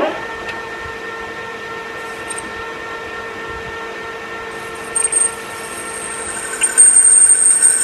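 Metal lathe starting up and running with a steady gear whine. About five seconds in a high-pitched squeal joins, and it grows louder near the end.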